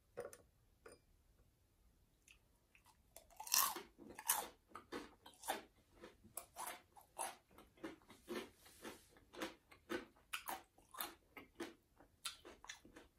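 Crunchy bites into a fried vegetable wonton about three and a half seconds in, then steady crunchy chewing at about two chews a second.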